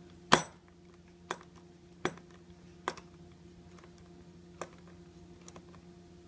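A screwdriver turning a screw down into the ice maker's metal mounting bracket. One sharp click comes just after the start, then five fainter clicks roughly a second apart as the screw is tightened.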